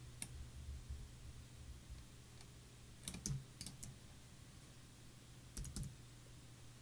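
Faint clicks of computer keyboard keys entering Blender's scale-along-Z shortcut: a single click just after the start, a small cluster about three seconds in, and a pair near the end, over a faint low hum.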